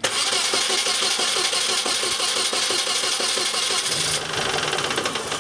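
A 2002 Mini Cooper's 1.6-litre four-cylinder engine is cranked and fires up, running loudly with a fast, even rhythm. About four seconds in it drops to a quieter, steady idle. The engine runs, so it is not seized; the hard cranking came from a seized alternator.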